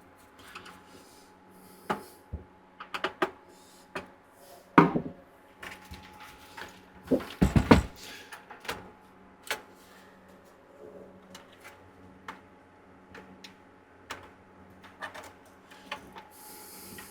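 Scattered clicks, knocks and rubbing from reassembling a stereo receiver, as connector plugs are pushed into its circuit board and the chassis is handled. The loudest knock comes about five seconds in, and a cluster of knocks with a dull thud comes at around seven and a half seconds.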